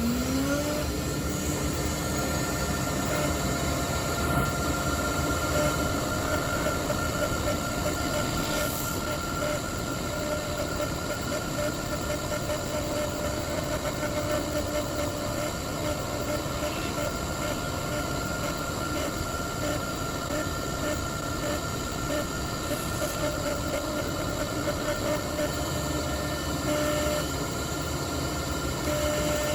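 CNC router spindle winding up to speed in the first second, then running at a steady high whine over a constant rushing noise while cutting a guitar pickguard.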